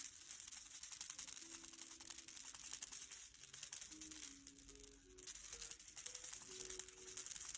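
Maracas shaken in a fast, continuous rattle that breaks off briefly about five seconds in, over a few soft held musical notes.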